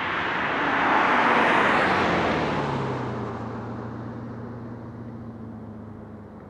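Kleemann S7-tuned Mercedes C55 AMG's V8 exhaust as the car drives past, loudest about a second in, then a steady low hum fading away as it drives off.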